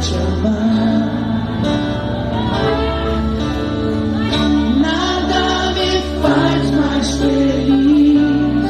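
A Christian worship song sung live over acoustic guitar, with sustained low bass notes underneath.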